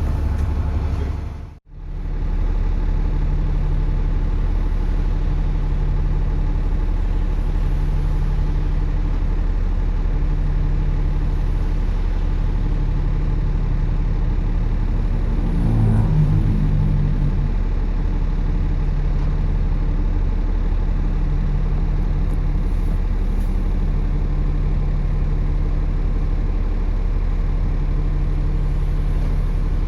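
Double-decker bus engine running steadily while the bus is on the move, with a low hum that swells and fades every second or two. The sound cuts out briefly about a second and a half in, and the engine note shifts for a moment around halfway.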